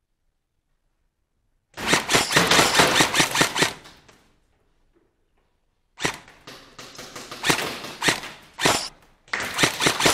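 Airsoft rifle firing in rapid full-auto bursts, starting about two seconds in: a burst of about two seconds, a pause of about two seconds, then more bursts to the end.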